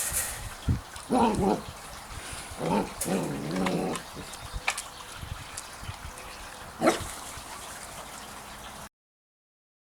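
Dogs yipping and whining in rough play: a few short calls at about one second, around three to four seconds, and once near seven seconds, with small knocks between. The sound cuts off abruptly about nine seconds in.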